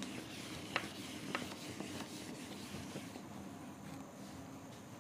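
Faint rubbing of a duster wiping a whiteboard clean, with a few light taps, stopping about three seconds in.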